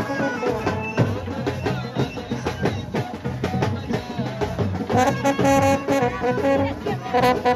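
Loud music of brass horns playing a held melody over fast, steady drumming, the horns growing fuller about five seconds in.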